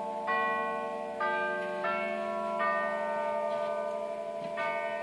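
Herschede Model 250 grandfather clock playing its hour chime on its bells. Four ringing notes come about two-thirds of a second apart, and a new phrase begins after a pause near the end.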